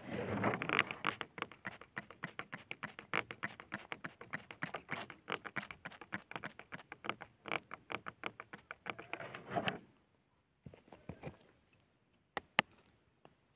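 Water poured over a stone in loose dry soil, splashing in a dense run of quick, crackly spatters for about ten seconds before it stops. A few faint clicks follow near the end.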